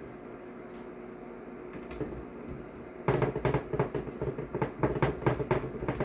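Small metal parts of an airsoft V2 gearbox clicking and rattling as the gearbox shell and its small Phillips screws are handled. A quick, irregular run of sharp clicks starts about halfway through, after a quiet start.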